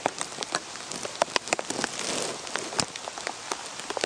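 Heavy rain: a steady hiss of rainfall with many irregular sharp taps of drops striking the plastic poop bag wrapped around the camera.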